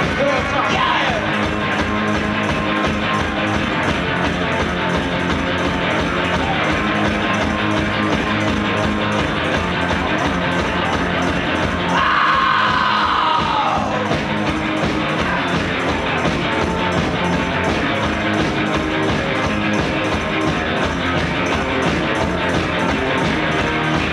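Live garage rock band playing electric guitar over a steady beat. The music swells briefly about twelve seconds in.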